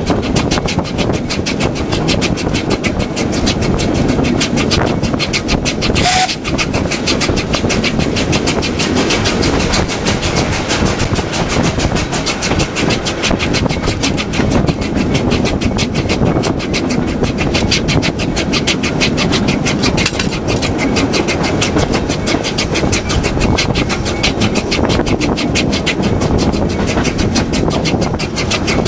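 Train running along the track with a loud, steady rumble and a fast, regular clatter from the rails.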